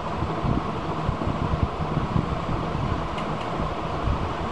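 Steady low rumbling background noise, like a fan or machine running, with a couple of faint ticks near the end.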